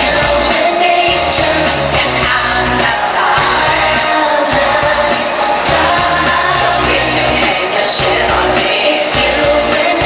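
Live pop-rock concert heard from the audience in an arena: a woman singing lead over a band with a steady beat, loud and continuous.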